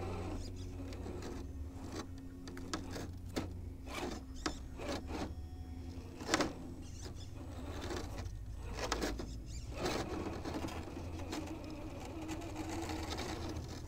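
Axial SCX10 III Gladiator RC crawler's small brushed electric motor and drivetrain whirring as it crawls on sandstone, with its tyres scraping and knocking on the rock now and then.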